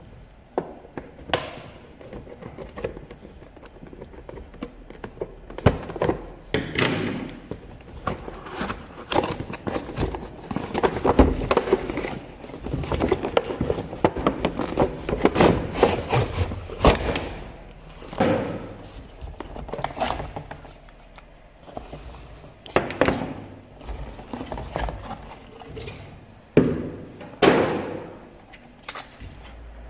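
Irregular thunks, taps and rustling of hands handling packaging and the toy car during unboxing.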